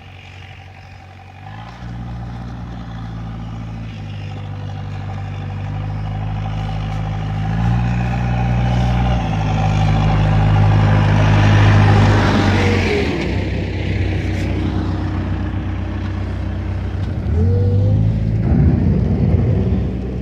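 A motor vehicle's engine running close by, its pitch stepping up and down as it works. It fades about two-thirds of the way through and picks up again near the end.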